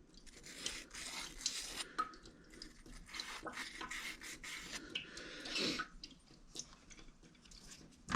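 Faint light clicks and rubbing from hands handling small metal and rubber parts of a backflow preventer's relief valve, with a slightly louder scrape about five and a half seconds in.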